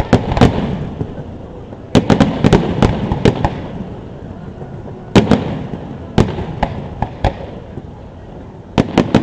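Aerial firework shells bursting, a run of sharp bangs with rolling echo between them: a quick cluster about two seconds in, a single loud burst around five seconds, scattered bangs after, and another quick cluster near the end.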